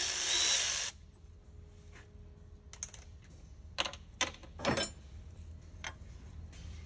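Cordless electric ratchet running with a steady whine for about a second, then stopping. A few light metallic clicks and clinks follow as fuel-line fittings on a diesel engine are handled.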